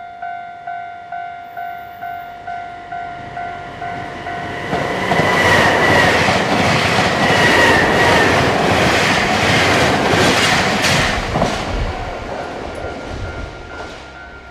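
Japanese railway level-crossing warning bell ringing about two and a half times a second. About five seconds in, a Nankai electric train passes over the crossing, its wheels clattering over the rail joints for several seconds and drowning out the bell. The train then fades, and the bell rings on faintly.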